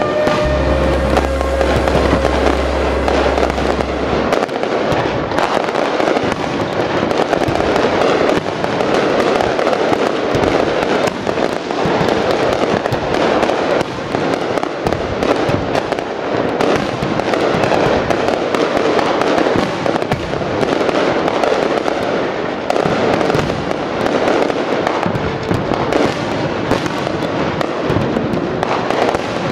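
Large aerial fireworks display: many shells bursting at once in a continuous barrage of crackling and popping. Music with a held low bass note fades out in the first few seconds.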